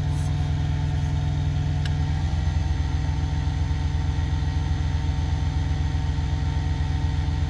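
Truck engine idling steadily, an even, unchanging hum.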